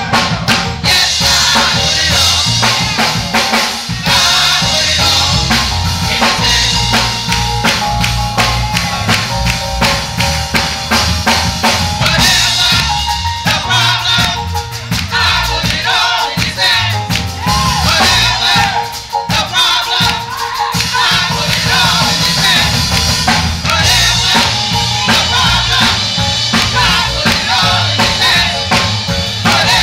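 Live gospel church music: a drum kit keeps a steady beat under bass and singing voices.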